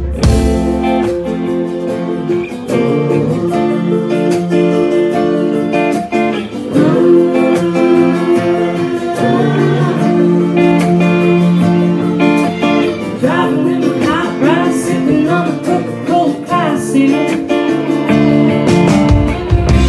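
Live indie band playing: electric guitar lines with a woman singing over them.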